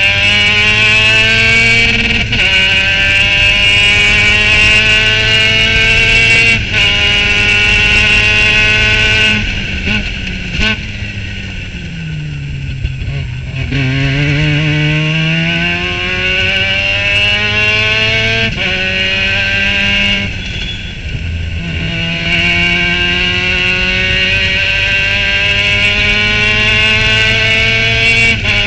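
Formula Mazda race car's rotary engine at full throttle, heard from the cockpit, its pitch climbing and dropping sharply at upshifts about two, seven and nine seconds in. It then lifts and downshifts for a slow corner, falling to its lowest note around twelve to thirteen seconds in, and climbs back through the gears, with further upshifts about twenty and twenty-two seconds in and one more at the end.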